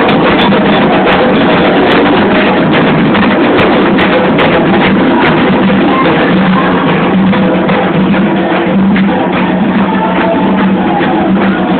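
Candomblé ritual music: atabaque hand drums beating a steady rhythm under group chanting, recorded very loud.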